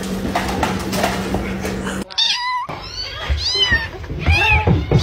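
Newborn kitten mewing: a quick series of short, high-pitched cries, each rising and falling in pitch, starting about two seconds in. Before that, a stretch of muffled noise with small knocks.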